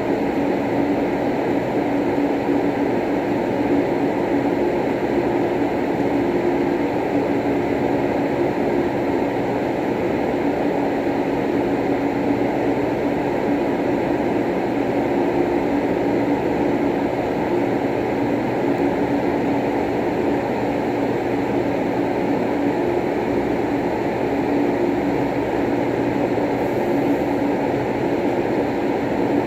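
Steady low droning noise with a constant hum, unchanging throughout.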